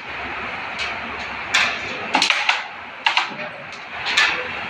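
Carrom shot: a run of about half a dozen sharp wooden clicks, starting about one and a half seconds in, as the flicked striker hits the coins and they knock against each other and the board's frame.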